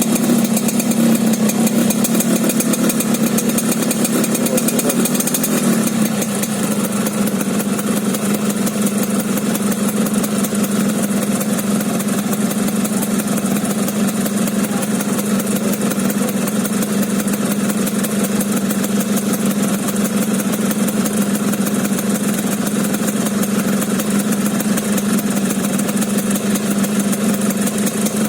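Yamaha RX-King's single-cylinder two-stroke engine idling with the rough, snoring 'ngorok' note. About six seconds in it settles to a slightly lower, steady idle.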